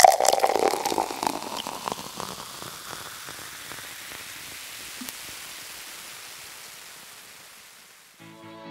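Rain pattering, a dense crackle that fades away gradually; music begins near the end.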